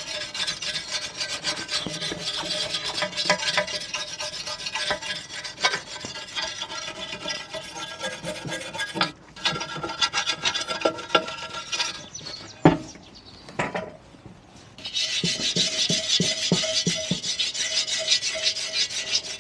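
Small hand brush scrubbing degreaser over the rusty, painted steel of a Suzuki FZ50 moped's front fork, a fast rasping back-and-forth to shift loose rust and paint. It pauses briefly about twelve seconds in, with a single click, and resumes about three seconds later.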